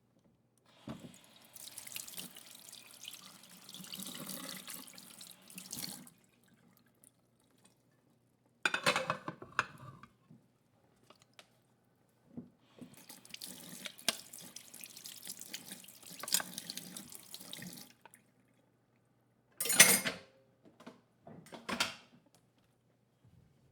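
A kitchen tap running into a sink in two stretches of several seconds, with short clatters of plates knocked together in the sink between and after them, the loudest about twenty seconds in.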